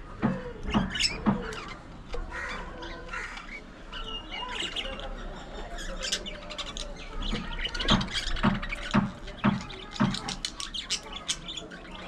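A flock of budgerigars chattering: a busy run of short chirps, squawks and warbling.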